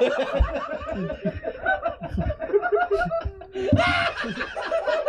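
People laughing and chuckling together.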